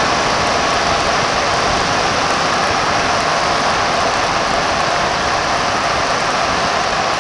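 Steady rush of wind and road noise on a camera mounted outside on the front plow frame of a 1992 Chevy Suburban driving along at speed.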